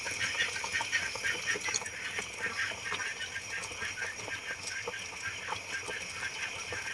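Pot of beef shank broth at a rolling boil, the water bubbling and popping in quick, continuous small blips.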